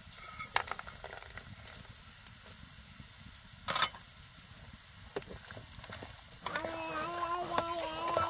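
Vegetables frying in oil in a pan over a wood fire: a steady sizzle with small clicks and scrapes, and a short louder burst about four seconds in as more ingredients are tipped into the pan. From about six and a half seconds a long, held, slightly wavering call at one pitch sounds over the frying.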